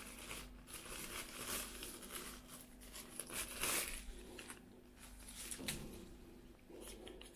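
Thin plastic wrapping crinkling and rustling as drone propellers are unwrapped and handled, in irregular rustles with the loudest a little under four seconds in.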